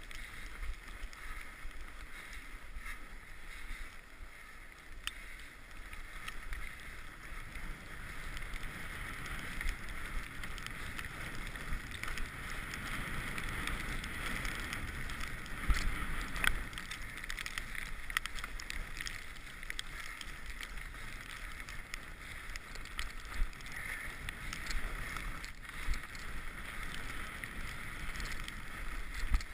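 Mountain bike riding along a trail, heard through a GoPro: steady rolling and rattling noise with wind rumble and a few sharp knocks from bumps, the loudest about halfway through.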